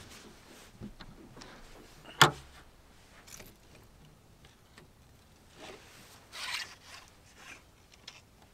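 Gear being handled and rummaged through: soft rustling and scraping with small clicks, and one sharp click or knock about two seconds in, the loudest sound.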